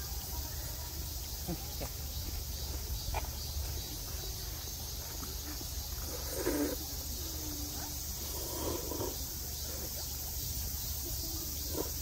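Steady outdoor ambience: an even high hiss with an insect-like drone, under a few soft clicks and two short muffled sounds past the middle.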